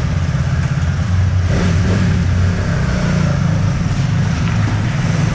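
Several motorcycle engines running as the bikes ride off slowly through an underground parking garage, a dense, steady low rumble that grows a little louder about a second in.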